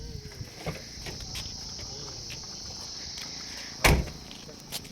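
Insects chirring steadily in a continuous high buzz. A single sharp knock sounds close by about four seconds in, with a few fainter clicks around it.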